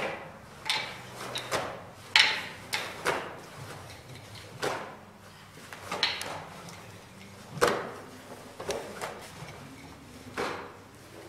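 Wooden nunchaku being swung and caught during a kata: a series of sudden swishes and knocks, about a dozen, unevenly spaced, the loudest about two seconds in.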